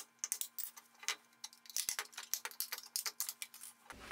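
Flathead screwdriver prising the plastic lid off a sealed lead-acid battery: a quick, irregular string of small clicks and snaps as the plastic catches let go.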